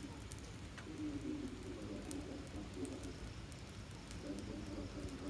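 Rain falling steadily on wet pavement, with scattered sharp ticks of drops landing close to the microphone. A low, wavering sound of unclear source runs underneath.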